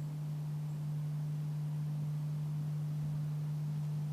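A steady, unchanging low hum on one pitch over faint background hiss.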